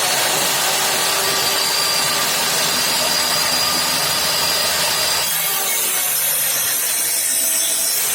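Electric power tool running steadily against wood, a loud even rasping noise with a thin high whine that drops out about five seconds in.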